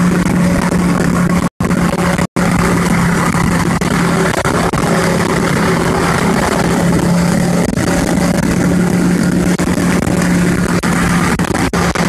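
Car engine holding a steady drone at highway cruising speed, heard from inside the cabin over heavy wind and road noise. The sound cuts out completely twice, very briefly, about one and a half and two and a half seconds in.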